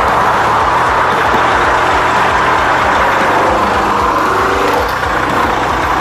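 Truck engine running steadily, its pitch wavering slightly in the middle.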